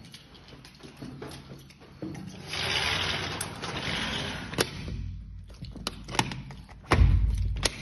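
A sliding glass door being unlatched and slid open: scraping and sharp clicks from the latch and frame, then a loud low rumble near the end as the door moves.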